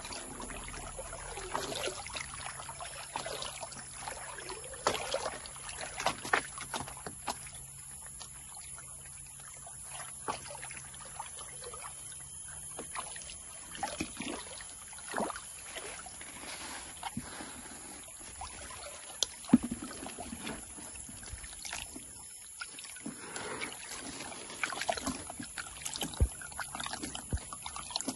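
Water sloshing and splashing in a plastic gold pan as it is swirled and dipped in a shallow stream, with irregular short splashes throughout.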